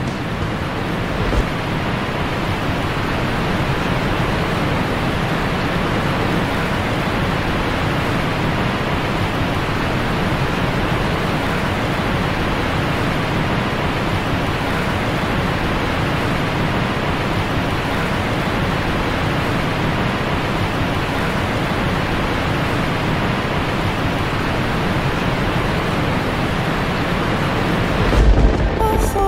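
Steady, even rushing noise of ocean surf, with a brief louder low rumble near the end.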